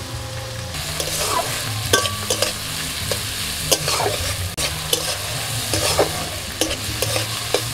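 Chopped vegetables (onion, green chilli, carrot, capsicum and tomato) sizzling in oil in a metal karahi while a metal spatula stirs them. There is a steady frying hiss, with sharp clicks of the spatula against the pan now and then.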